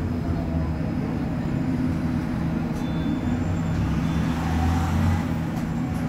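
City bus idling while parked, a steady low engine hum with an even pitch.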